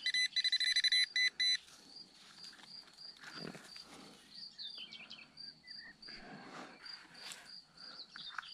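Metal-detecting pinpointer beeping in quick stuttering pulses for about the first second and a half, signalling metal in the hole. After that comes faint high chirping, about three a second, with light rustling of soil and gloved hands.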